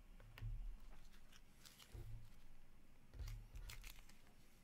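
Faint rustling and light clicks of trading cards being handled and slid into plastic card sleeves, with a few soft low thumps.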